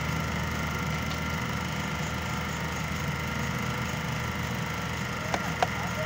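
An engine running steadily with an even hum, and two sharp clicks a fraction of a second apart near the end.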